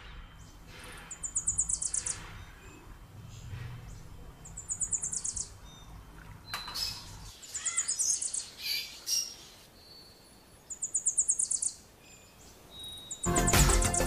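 A small bird singing short, fast, high-pitched trills of rapid chirps, repeated four times about three seconds apart. Music begins about a second before the end.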